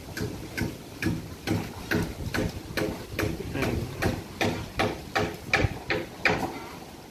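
Goats browsing pagatpat leaves off cut branches: a quick, irregular run of crisp snapping and crunching clicks as they strip and chew the leaves, loudest about five to six seconds in and thinning out near the end.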